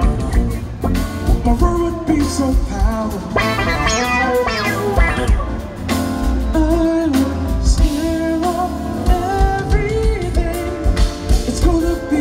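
Live band performing: a male voice singing over electric bass, keyboards and a drum kit.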